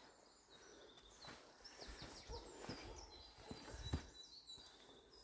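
Faint footsteps on a forest path, soft irregular thumps, with small birds singing high, thin notes: a quick run of short chirps a few seconds in, then a held high note.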